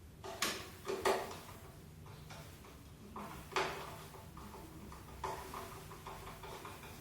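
Irregular knocks and clatters: a handful of sharp strikes, a double one about a second in, spaced a second or two apart over a quiet steady background.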